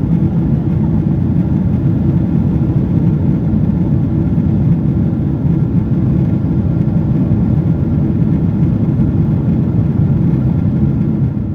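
Steady low rumble of a Boeing 777-300ER's GE90 engines and airflow, heard inside the passenger cabin in flight.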